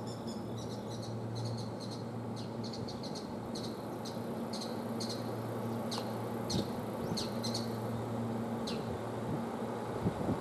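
Small birds chirping in short, quick falling calls, many at first and fewer later, over a steady low hum from the parked, powered-up electric trains. A couple of dull knocks near the end.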